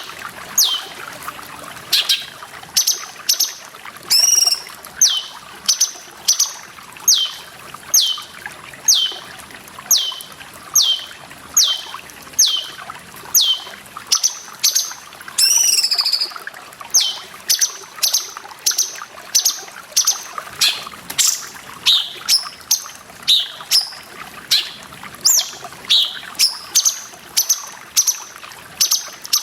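Cucak cungkok calling over a bed of trickling water: short, sharp notes that slide quickly down in pitch, repeated about once a second, with one longer call about halfway through.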